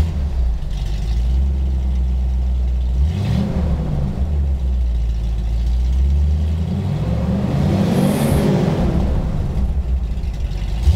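Car exhaust heard at the tailpipe: the engine idles with a deep, steady rumble, is blipped briefly about three seconds in, then revved up and back down around eight seconds in.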